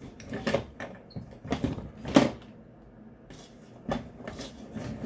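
Irregular knocks and clacks of Nelson sprinkler parts being handled and fitted onto its cast-iron frame, about half a dozen separate hits, the loudest a little past two seconds in.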